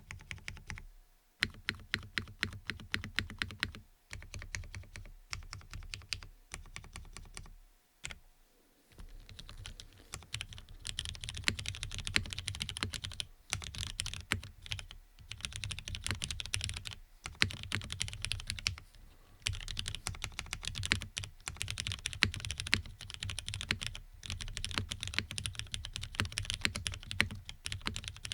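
Typing on a custom mechanical keyboard with lubed linear Cherry MX Black switches in an FR4 half plate, keys clacking in quick runs with short pauses. The strokes are spaced out at first and become fast, continuous typing after about ten seconds.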